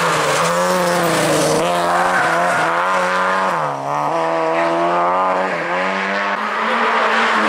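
A Lada saloon rally car's four-cylinder engine is running hard at high revs as it passes close by. About halfway through the revs drop briefly as the driver lifts for a hairpin, then climb again as the car accelerates away.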